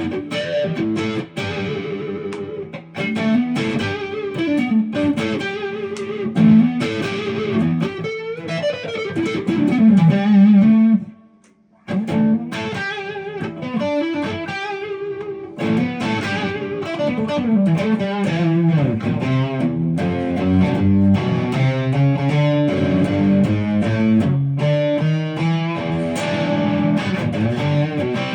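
1974 Japanese-made Ibanez Rocket Roll electric guitar played through a crunchy, lightly overdriven tone: riffs, note runs and chords. The playing stops briefly about eleven seconds in, then carries on.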